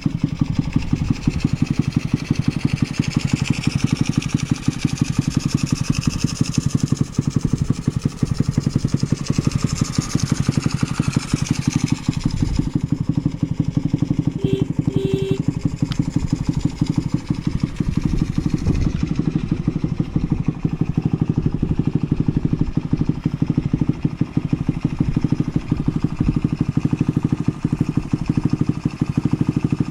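Honda Jazz (AC09) 50cc four-stroke single-cylinder engine idling steadily with an even, rapid exhaust beat, running without any abnormal noise. Two short beeps sound about halfway through.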